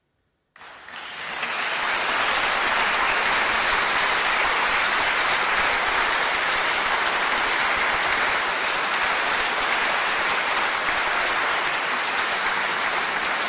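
Concert audience applauding: the clapping starts suddenly about half a second in, swells over the next second and then holds steady.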